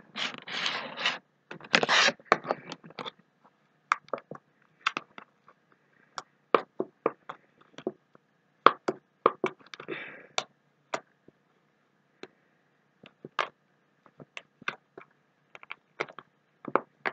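Fluffy, jiggly blue slime, made with shaving cream, being squished and pressed by hand in a clear plastic tub, giving irregular sharp clicks and pops. There is denser handling noise in the first few seconds.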